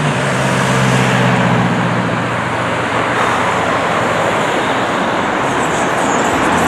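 Steady road traffic noise, with a vehicle engine's low hum standing out for the first two seconds or so.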